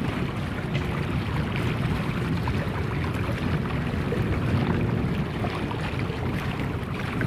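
Steady, distant low drone of several Air Tractor AT-802 Fire Boss single-engine turboprops flying low over the water.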